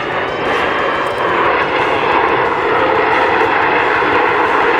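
Four U.S. Navy Blue Angels F/A-18 Hornet jets passing overhead in diamond formation. A loud, steady jet-engine roar swells slightly about a second and a half in.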